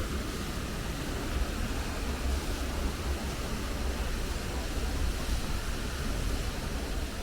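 Steady rush of a waterfall: an even hiss of falling water with a low rumble underneath.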